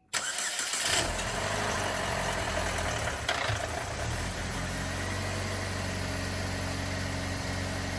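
Car engine starting for the first time after an engine swap: it starts within the first second, runs louder for the first few seconds, then settles into a steady idle.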